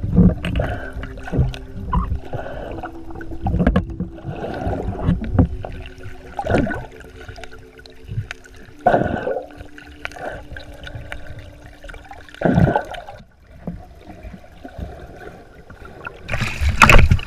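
Muffled underwater sound from a camera on a pole spear: irregular thumps and swishes of water every second or two as the diver moves, over a faint steady hum. Just before the end comes a loud splash as the spear and camera break the surface.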